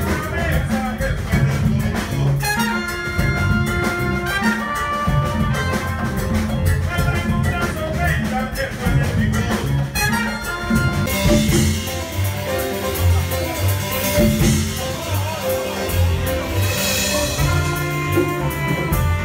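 Live jazz band playing: trumpet and a second horn carry a melody of held notes over electric bass, keyboard, drum kit and congas. About eleven seconds in the cymbals come up and the sound grows brighter.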